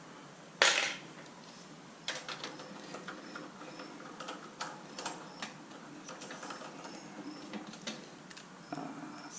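A sharp clack about half a second in, then a ratchet wrench clicking in short runs as small 10 mm bolts are loosened off a snowblower's cover.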